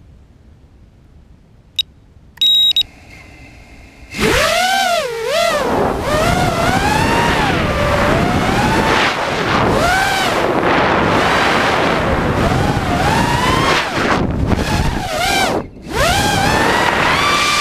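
ImpulseRC Reverb FPV quadcopter at rest, then a click and a short loud beep; about four seconds in its brushless motors and propellers spin up into a loud whine that rises and falls in pitch with the throttle as it flies. The whine drops out briefly near the end, then picks up again.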